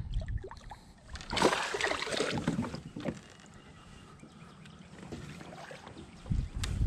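Rustling, scuffing and knocking as an angler shifts his body and gear in a plastic fishing kayak: a loud rough scuffing sound for about two seconds starting a second in, then a low wind rumble, then a few bumps and clicks near the end.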